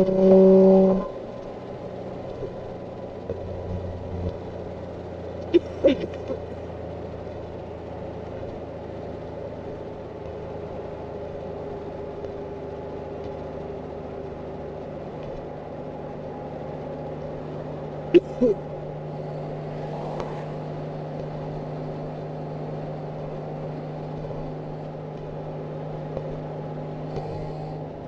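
Interior sound of an Infiniti G35's 3.5-litre V6 with a straight-piped 3-inch exhaust, no catalytic converters and a single Magnaflow muffler. For about the first second the engine is loud under load, then the level drops sharply as the throttle comes off, and it settles into a steady cruising drone. Short sharp sounds come twice, a few seconds in and again past the middle.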